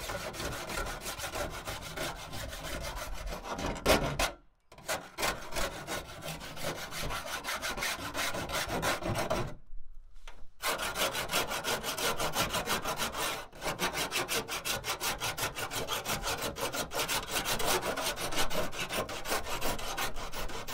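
Hand flat file rasping back and forth along the freshly cut edge of a steel van roof in quick, even strokes, pausing briefly twice. This is deburring the edge of a newly cut roof-vent hole.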